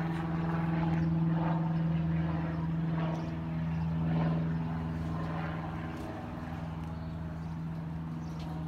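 Steady mechanical drone with an unchanging low pitch, growing slightly fainter over the seconds.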